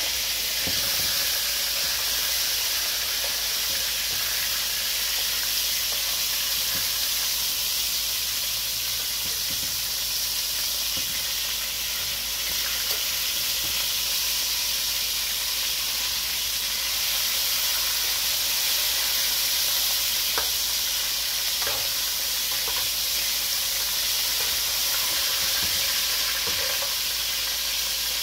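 Two whole pigeons frying in hot oil in an aluminium pot: a steady sizzle, with a few light clicks and scrapes of a metal spatula turning them.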